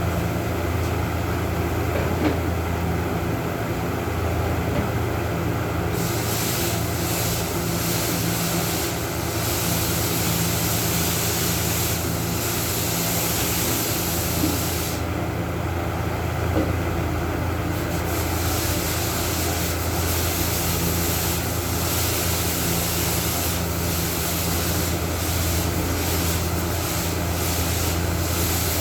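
Sanding: a run of scratchy rubbing strokes that begins about six seconds in, pauses for a few seconds midway, then resumes, over a steady low hum.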